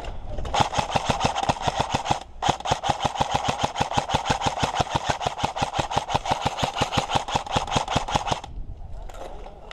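Airsoft gun firing on full auto in two long bursts, a fast even rattle of about eight shots a second, with a brief break about two seconds in.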